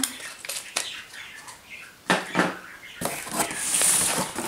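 Cardboard printer box being handled and its flaps pulled open: a few scattered knocks and scrapes, then a longer rustling scrape of cardboard in the last second and a half.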